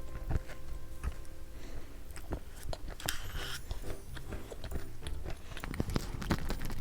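Close-miked chewing and biting of yakgwa, the honey-soaked Korean fried cookie, with many small sticky clicks and crunches.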